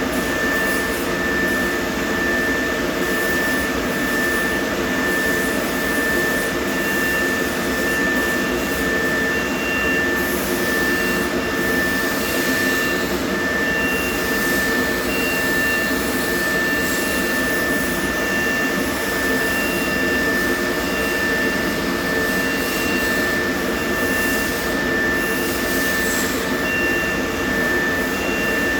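Steady, loud machine whirring, like a motor or blower running, with a constant high-pitched whine and a fainter higher tone that pulses on and off.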